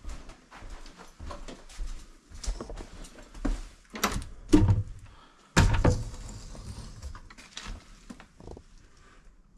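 Footsteps on an old wooden floor, then the iron thumb latch of a plank door rattling and the door being pulled open, with a loud clunk a little past halfway that trails off.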